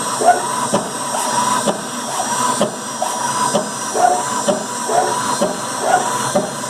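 CNC router running a test program: its stepper motors give short whines that bend in pitch as the gantry makes quick back-and-forth moves, over a steady hiss.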